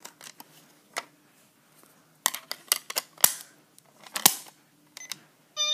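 A CD player being handled: an irregular run of sharp plastic clicks and knocks, the loudest about three and four seconds in. Just before the end its electronic music starts.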